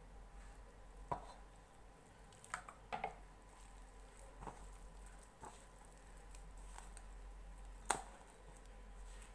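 A hand working flour and warm water into a soft, sticky dough in a stainless steel bowl: faint squishing, with a few light clicks and knocks against the bowl, the loudest near the end.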